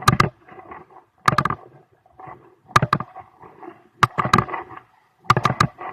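An irregular series of sharp knocks and clatters, a cluster about every second to second and a half, with lighter rattling between them.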